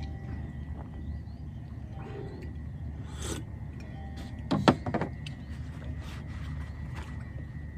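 Camping gear being loaded into a car: a short clatter of knocks and a bang a little past halfway, over a steady low rumble.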